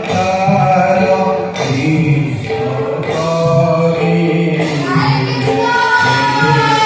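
Devotional stage music with several voices singing a slow melody in long held notes.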